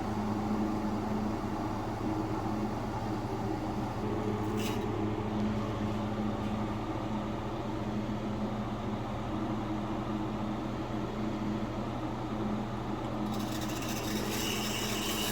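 New Robertshaw 24-volt gas furnace valve's solenoid buzzing steadily while the burner is lit, a hum with a low fundamental and several overtones. The owner suspects either a faulty valve or low supply voltage upstream as the cause. A brief click comes about four and a half seconds in, and a hiss near the end.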